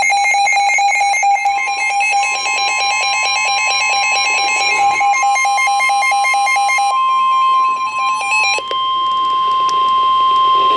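NOAA Weather Radio warning alarm: a single long steady tone starts about a second and a half in and holds, the signal that a warning broadcast is about to follow. Under it, a weather radio receiver's rapid pulsing alert beeps repeat evenly and stop about seven seconds in.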